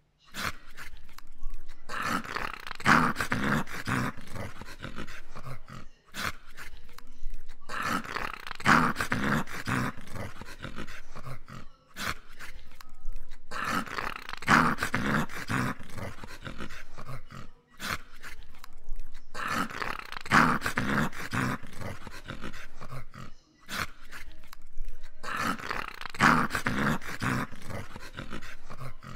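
English cocker spaniel making long, growl-like grumbling sounds, one about every six seconds, with a brief silent gap between each.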